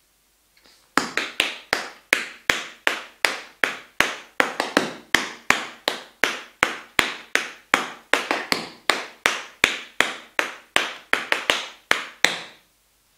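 Tap shoes' metal taps striking a wooden board floor in a steady rhythm of sharp clicks, about three a second with some in quick pairs. The tapping starts about a second in and stops shortly before the end.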